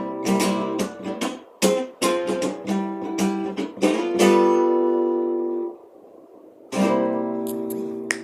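Guitar strumming the end of a song: a quick run of strummed chords, then a chord left to ring that stops short just before six seconds in. After a brief pause, one last chord is struck and rings out.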